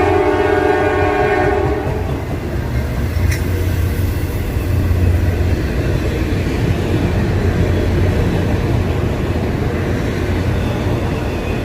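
Diesel freight locomotive's multi-chime horn sounding a chord that cuts off about two seconds in, followed by the steady low rumble of the train passing: engine and wheel-on-rail noise.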